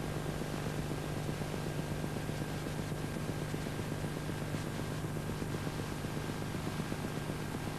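Steady hiss with a low electrical hum: the background noise of a silent videocassette soundtrack.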